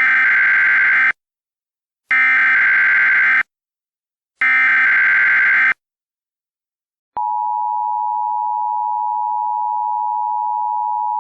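Emergency Alert System signal: three identical buzzy bursts of SAME header data, each about a second long with short gaps, then about 7 s in the steady two-tone EAS attention signal begins. This sequence announces an emergency broadcast message.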